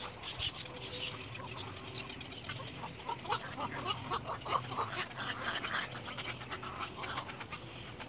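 Heron chicks giving a dense run of short, rapid calls: chattering clicks and chirps repeated many times a second, over a faint low hum.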